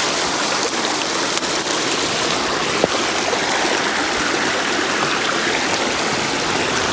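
A small rocky stream rushing steadily, an even hiss of flowing water.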